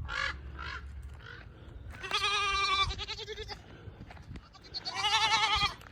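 Young goats bleating: a few short calls at the start, then two long, quavering bleats, one about two seconds in and one near the end.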